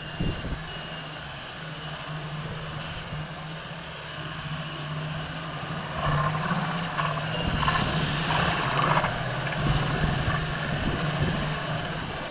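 Toyota LandCruiser 80 Series engine driving steadily through deep mud ruts, a low even drone that grows louder about halfway through, with a hissing rush of tyres in the mud around two-thirds of the way in.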